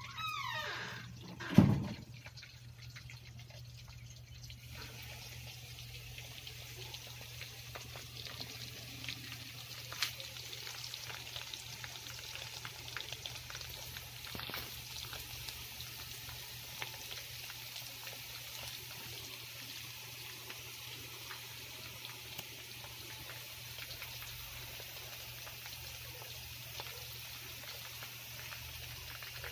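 A single thump about a second and a half in, then chicken pieces frying in hot oil in a wok: a steady crackling sizzle of many small pops that carries on to the end.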